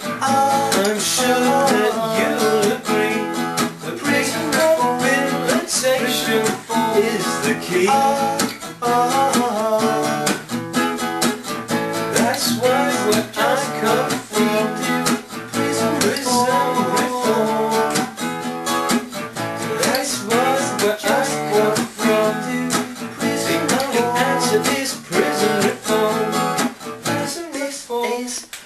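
Acoustic guitar strummed in a steady rhythm, an instrumental stretch of the song with no singing.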